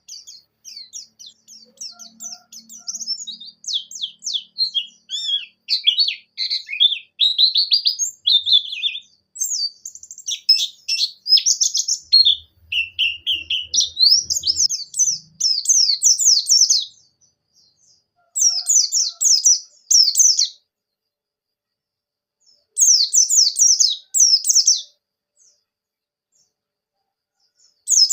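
White-eye (pleci) singing a fast, high twittering song in long, nearly unbroken runs, then in a few separate bursts with short silences between them.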